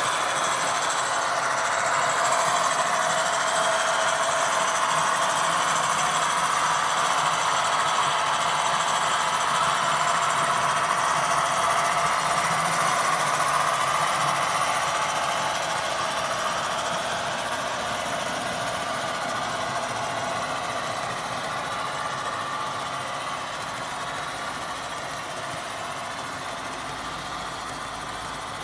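HO scale model train running on the layout: a steady mechanical running noise that slowly fades over the second half.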